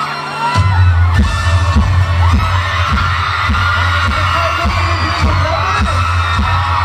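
Live pop song over a stage PA: a heavy, steady bass beat comes in about half a second in, under a man singing into a microphone.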